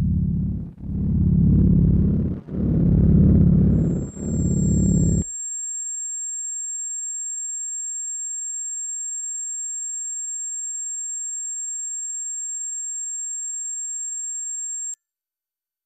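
Film sound design: four slow swells of a deep, low rumble. Then a steady, high-pitched ringing tone comes in about four seconds in, holds for some ten seconds and cuts off abruptly.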